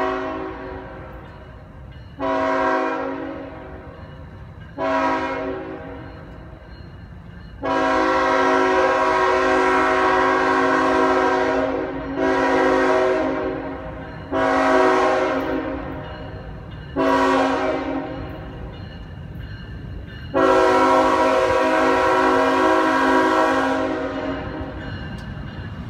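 Multi-chime air horn of a CSX GE ET44AH locomotive blowing a string of blasts as the train approaches, the pattern locomotives sound for road crossings. About seven blasts, mostly short, with a long one about eight seconds in and another near the end, over a steady low rumble.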